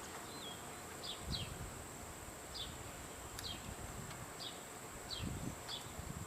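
Faint outdoor background: short, falling high chirps repeating about once a second over a steady high hiss, with a couple of soft low thumps.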